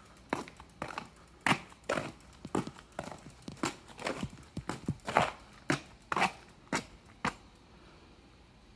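Footsteps of a person walking on a paved sidewalk, sharp scuffing steps about two a second, stopping about seven seconds in.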